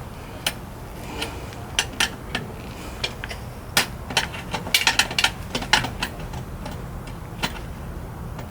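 Irregular small sharp clicks and ticks of wiring-harness connectors and wire terminals being handled and worked loose, coming in a quick cluster about halfway through.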